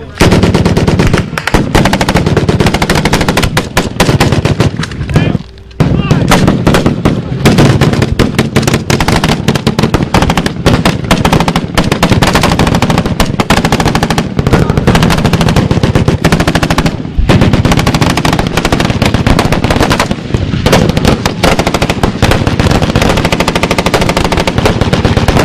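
Sustained automatic gunfire, very loud and close, in rapid unbroken strings of shots with only a brief lull about five seconds in and another near the middle.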